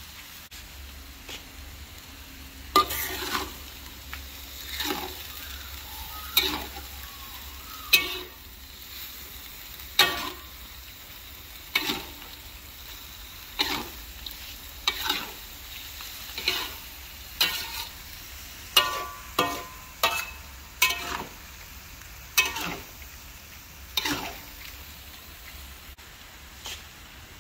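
Minced chicken stir-frying in an aluminium wok: a metal spoon scrapes and knocks against the wok every second or two over a steady sizzle. The knocks stop near the end.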